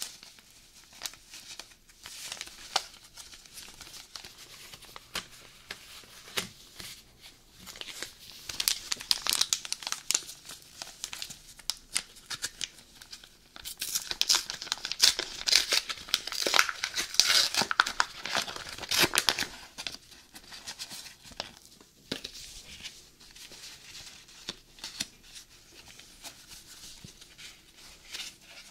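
Pokémon booster pack wrappers crinkling in gloved hands, then a pack being torn open, a dense run of sharp crackles and tearing that is loudest about halfway through.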